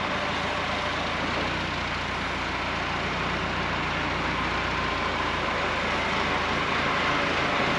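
Farm tractor engine running steadily, a constant low hum under a wide even noise.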